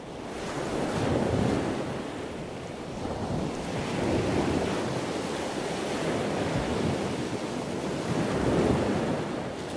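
A steady rushing noise like ocean surf, swelling and easing every few seconds.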